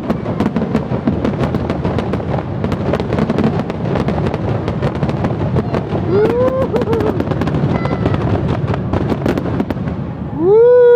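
Fireworks crackling with a dense stream of rapid pops and bangs. A faint pitched sound rises and falls about six seconds in, and a loud pitched sound rises and falls near the end.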